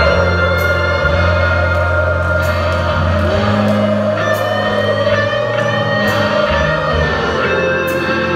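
Rock band playing live and loud: distorted electric guitars and bass holding long chords that change every second or two.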